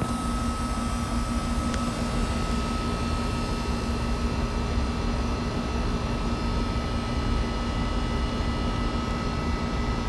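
Amana central air conditioner's outdoor condensing unit running steadily, its compressor and condenser fan giving an even hum and rush of air with a thin, steady high tone over it. The system is low on refrigerant and is being charged while it runs.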